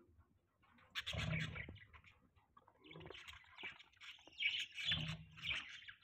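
A flock of budgerigars chirping and chattering in quick, overlapping bursts, starting about a second in.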